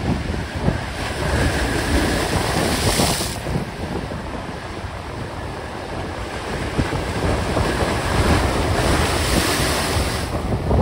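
Rough sea waves breaking and crashing against breakwater blocks, rocks and a stone seawall, with two big crashes of spray, one about a second in and one near the end. Wind buffets the microphone.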